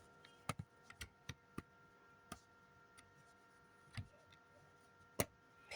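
Scattered light plastic clicks, about seven over several seconds with the sharpest near the end, as the plastic shells of fire alarm horn strobe devices are handled and unclipped from their mounts.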